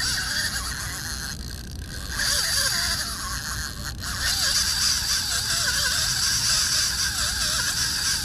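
Spinning reel's drag buzzing steadily as a big fish takes line off a very light drag. The buzz drops away briefly about one and a half seconds in, then resumes.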